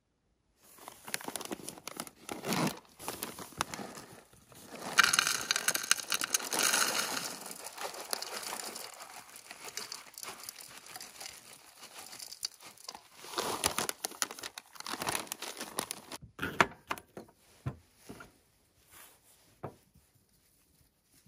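Crinkling of a plastic granola bag being handled, with granola poured from it into a bowl in a loud, dense rush about five seconds in. Quieter rustles and clicks follow, fading near the end.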